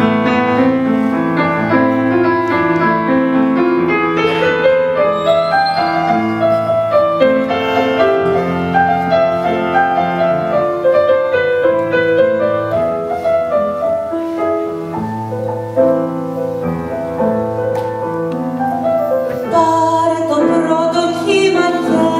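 Piano-led instrumental interlude of a Greek ballad, held chords over a moving bass line, with no voice until the singing comes back in near the end.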